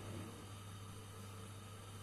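Quiet room tone: a steady low hum under faint hiss.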